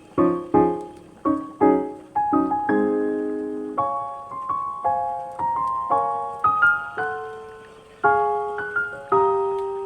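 Background piano music. Struck notes and chords ring and fade, quick short chords at first, then slower, longer-held notes.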